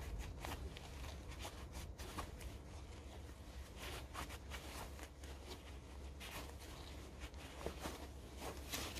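Faint rustling and rubbing of a cloth and cotton gloves as a small metal precision angle block is wiped clean, with many light, irregular ticks and scrapes of handling.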